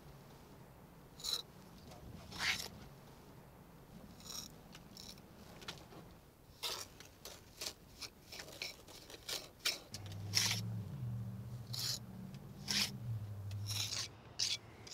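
A steel margin trowel scraping wet mortar off a metal hawk and pressing it into stone joints: a string of short, irregular scrapes. A low drone sounds in the background for a few seconds near the end.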